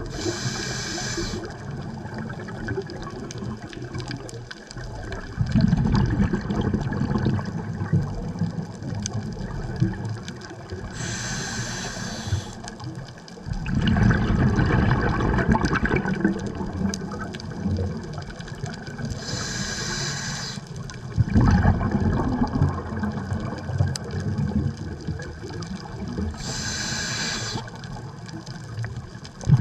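Scuba diver breathing underwater through a regulator: four short hissing inhales, each followed a few seconds later by a longer bubbling rumble of exhaled air, at a slow steady rhythm of about one breath every seven to eight seconds.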